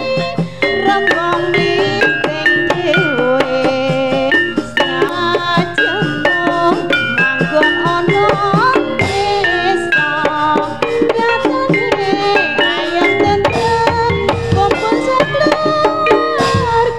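Javanese jaranan gamelan ensemble playing: kendang hand drums keep a busy rhythm under ringing bonang kettle gongs, with a wavering, gliding melody line on top.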